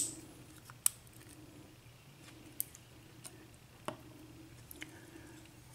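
Faint small metal clicks and taps, about half a dozen spread over several seconds, from handling a disassembled Russwin pin-tumbler lock cylinder while the last pin is worked out.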